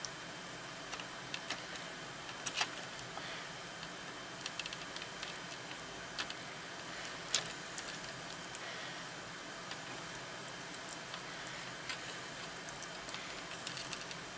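Faint, irregular clicks and ticks as a soldering iron tip taps and scrapes against small surface-mount components and solder joints on a circuit board while the joints are reflowed, over a steady hiss.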